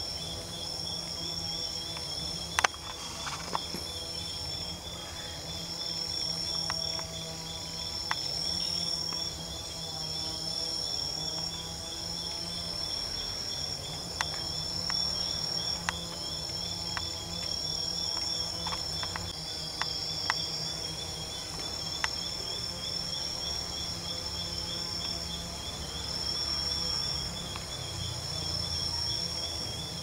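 Night-time insect chorus: several steady high-pitched trills layered together, one with a fast even pulse, with a few short sharp clicks scattered through.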